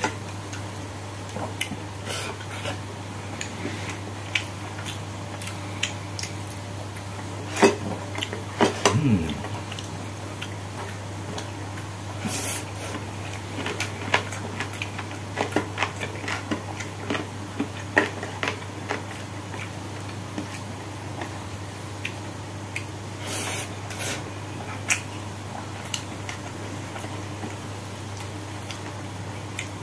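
Eating by hand at a table: scattered small clicks and taps of fingers and a spoon against ceramic plates and bowls, over a steady low hum. A short falling vocal sound comes about nine seconds in.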